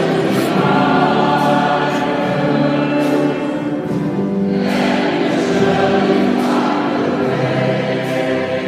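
A choir singing long-held chords in a church, with a new chord coming in about halfway through.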